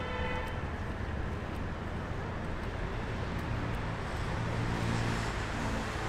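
Street traffic noise with a steady background hum. A short pitched toot comes right at the start, and a vehicle engine grows louder and passes near the end.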